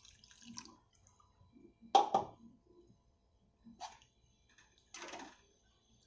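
Stainless steel ladle clinking and scraping against a metal kadhai while stirring thin, watery curry, with the liquid sloshing. A few short knocks, the loudest about two seconds in.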